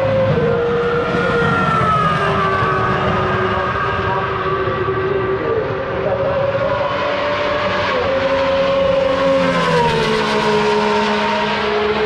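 Racing car engine running at high revs on the circuit, its pitch holding steady for a few seconds at a time and stepping down and up several times.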